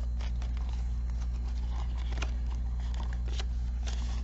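Faint rustling and light ticks of paper banknotes and envelopes being handled, over a steady low hum.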